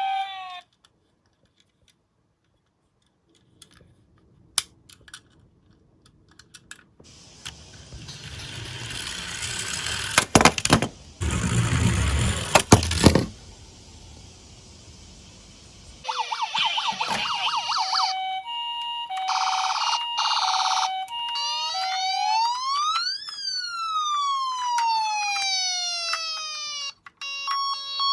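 A toy minicar rolls down a slope with a rattling rolling noise that grows louder and ends in a few clicks. Then an electronic siren sounds: a two-note high-low call, then a wail that sweeps up and back down.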